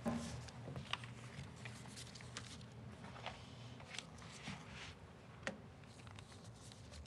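Faint rustling and small taps of loose paper sheets and spiral sketchbooks being handled and gathered on a table.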